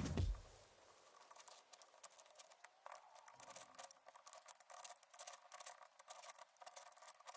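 A louder sound dies away about half a second in. After it come faint, irregular clicks and scratching from hand work on a small brass motorcycle fuel-tap part.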